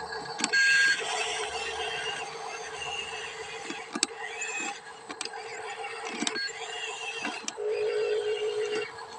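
Small electric motors and plastic gearboxes of a radio-controlled excavator whining as they start and stop, with a louder whine near the start and again near the end, and several sharp clicks and knocks in between.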